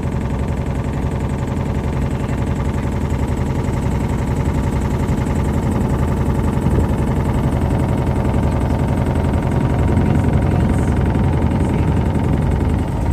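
Motorboat engine running steadily, with an even, mostly low-pitched drone.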